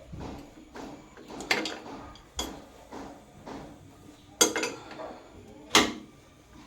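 Adjustable wrench clanking against an old metal faucet while it is being unscrewed: a handful of sharp metallic knocks, the loudest two about four and a half and six seconds in.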